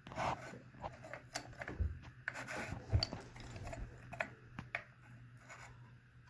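Glass light shade being twisted onto the threaded metal fitting of a ceiling fan light kit by hand, with irregular scraping and rubbing and light clicks of glass against metal.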